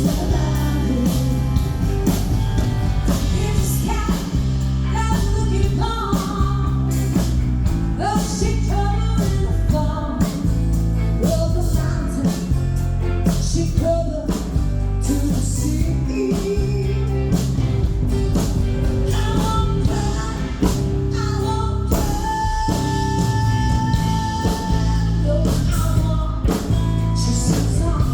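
Live band music with a lead singer: vocals over guitar, bass and drums in an upbeat rock-and-roll beat, recorded on a phone.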